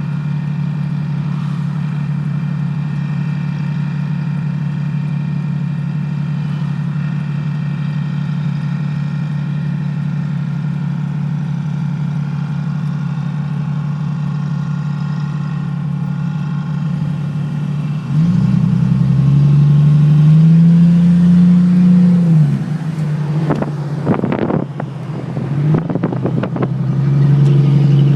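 Jeep XJ Cherokee engine running through an exhaust with no catalytic converter and no muffler, a steady loud drone. About two-thirds of the way in it revs up louder, holds, and drops back. It rises again near the end, with a few sharp knocks in between.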